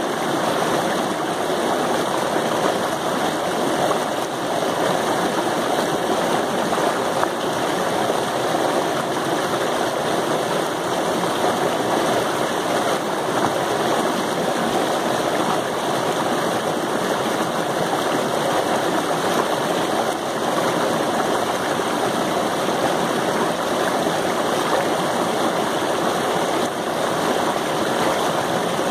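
Waterfall: water rushing steadily over the rocks, an even, unbroken noise that cuts in suddenly.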